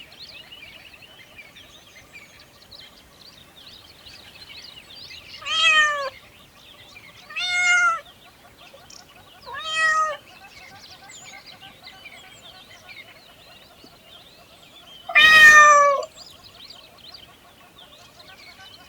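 A cat meowing four times, each call a short pitched meow, the fourth longer and louder than the rest, over faint background chirping of birds.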